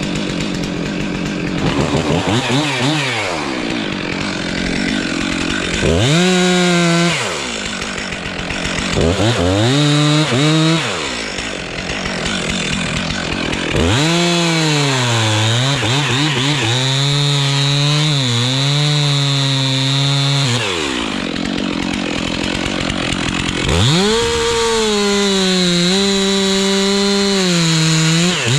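A two-stroke chainsaw revved up again and again, sagging and wavering in pitch under load as it cuts into wood, and dropping back to a rough idle between cuts. The longest cut runs through the middle of the stretch.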